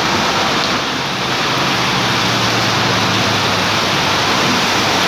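Heavy rain falling steadily on wet paving stones and the street, a dense even hiss, with cars driving through the water on the road.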